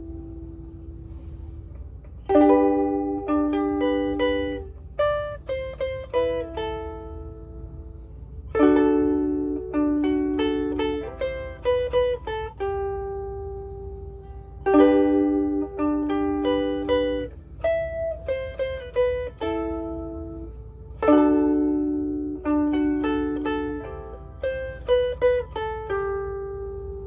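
Blue Wing mahogany soprano ukulele played fingerstyle: four phrases of the same tune, each opening with a chord and followed by a run of single plucked notes that ring on and fade.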